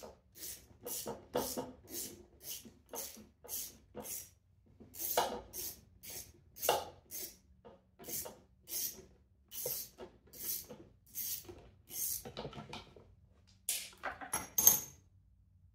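Hand ratchet wrench worked back and forth in short strokes, about two clicking strokes a second with brief pauses, while the mower's carburetor is unbolted; a couple of louder clacks near the end.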